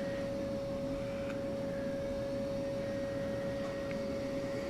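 Steady single-pitch test tone from a signal generator, played through the Philco 48-1274's field coil speaker via its output transformer. The tone holds one pitch throughout over a low background hum.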